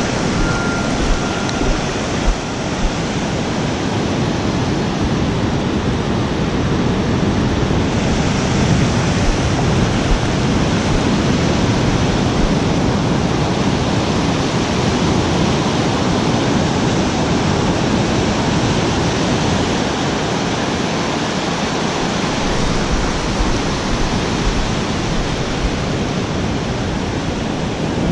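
Steady rush of breaking surf and foam washing up and back over the sand.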